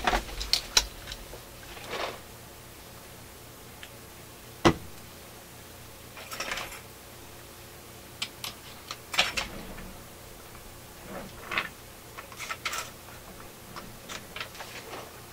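Small tools and parts being handled at an electronics workbench during soldering work: scattered light clicks and taps with brief rustles, and one sharp knock just under five seconds in.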